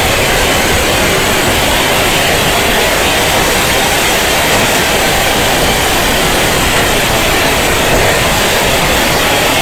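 Loud, steady noise like static hiss, even throughout, with no tones, beats or separate sounds in it.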